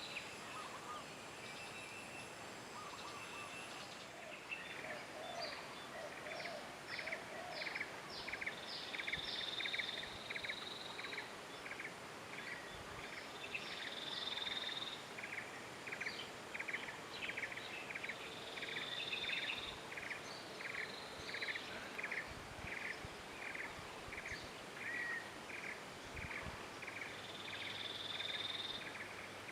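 Tropical outdoor ambience with birdsong. A short call repeats about twice a second from a few seconds in, and a higher, drawn-out note of about a second comes back every five seconds or so.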